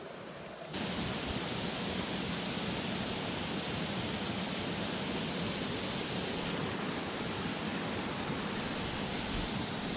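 Rushing water of a small mountain stream, a steady hiss. About a second in it jumps suddenly louder to the full, even rush of a small cascade spilling into a pool.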